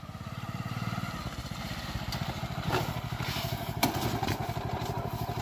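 Motorcycle engine running with a steady rapid firing beat as the bike rides down a dirt track. A few sharp knocks and clatters come about three to four seconds in as the bike tips over onto its side.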